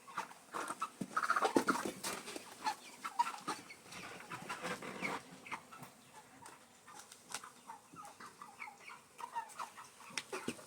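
Broiler chickens clucking: short, scattered calls from several birds, busiest in the first few seconds.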